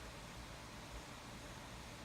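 Wind blowing: a faint, steady hiss with uneven low rumbles of wind on the microphone.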